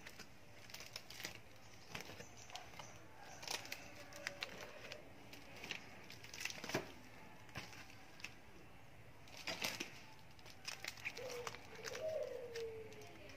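Metal jigs in clear plastic packaging being handled and slid into a fabric jig storage bag: irregular crinkling and rustling of the plastic packs with soft clicks, a few louder bursts scattered through.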